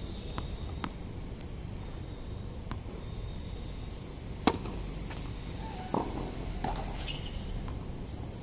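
Tennis ball bounced a few times on a hard court, then a sharp racket strike on the serve about four and a half seconds in, and another hit or bounce about a second and a half later, over steady background noise.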